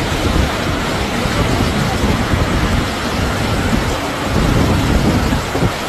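Floodwater from a flash flood after heavy rain rushing fast and turbulent across a street: a steady, loud rushing noise.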